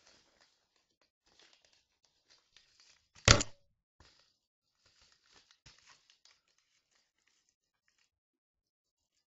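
Faint rustling and crinkling of a paper mailing envelope being worked open by hand, with one loud, short noise a little over three seconds in.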